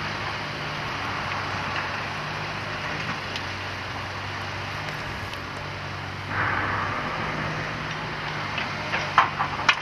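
Komatsu PC300 hydraulic excavator's diesel engine running steadily under load, with hydraulic hiss and a louder rush about six seconds in as the loaded boom swings. Near the end, a clatter of knocks as demolition debris drops from the bucket into the steel dump trailer.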